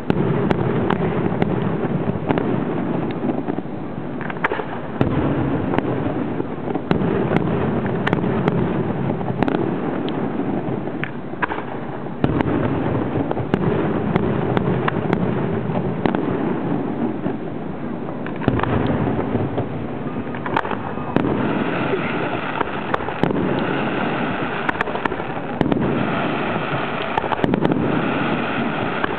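Aerial fireworks display: a continuous, rapid run of bangs and crackles from bursting shells over a dense low rumble. About three-quarters of the way through, a higher, repeating pulsed sound joins in.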